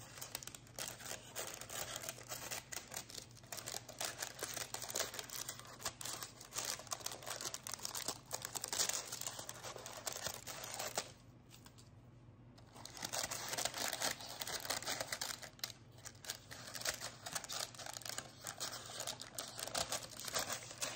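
Scissors cutting parchment paper, with the stiff paper crinkling and rustling as it is pulled and trimmed, in dense irregular crackles that stop for about two seconds near the middle.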